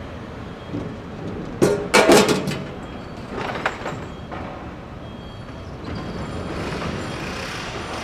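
Construction site ambience: a steady background hum of the site, broken about a second and a half in by a quick run of loud bangs, followed by a lighter knock a moment later.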